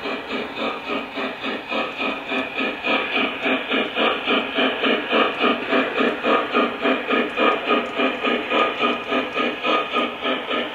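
O gauge model of a Union Pacific Big Boy steam locomotive chuffing through its onboard sound system: a steady, even rhythm of about three to four steam chuffs a second as it runs.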